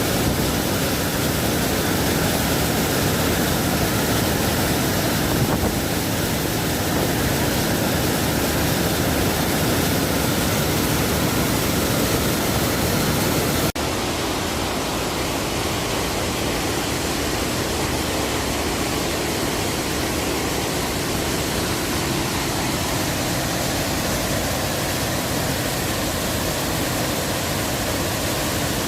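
Giessbach Falls, a cascading mountain waterfall, pouring in a loud, steady rush of water. About fourteen seconds in, the rush cuts abruptly to a slightly quieter, less deep one.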